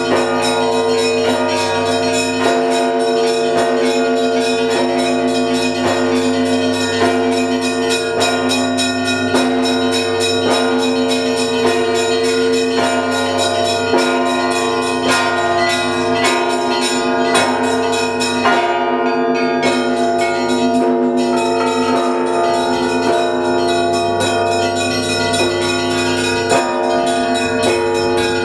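Russian Orthodox church bells of the Trinity-Sergius Lavra belfry ringing a festal paschal peal that calls to the evening service. Several bells are struck in a fast, continuous pattern, and their tones ring on over one another.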